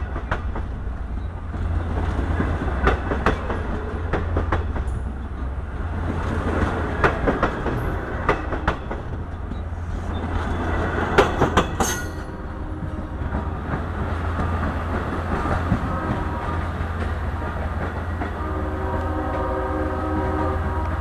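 Long Island Rail Road train of bi-level C3 coaches rolling past close by, its wheels clacking over rail joints with a steady low rumble. Near the end a multi-note train horn sounds.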